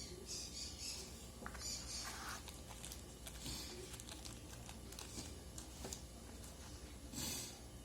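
Faint rustling and crinkling with scattered small clicks, as of packaging and small objects being handled. The loudest rustle comes near the end.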